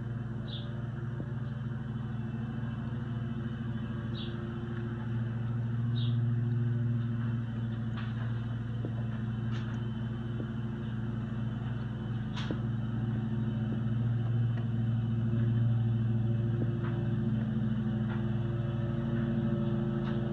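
A steady low hum, a little louder at times, with a few short high chirps near the start and a few sharp clicks scattered through.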